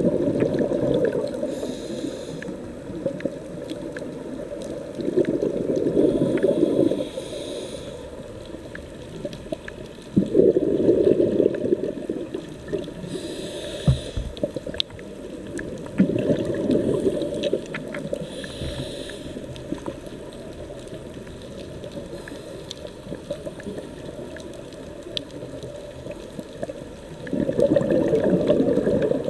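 Scuba diver breathing through a regulator underwater: rumbling bursts of exhaled bubbles about every five seconds, each followed by a short hiss of inhalation, with one longer pause between breaths in the second half.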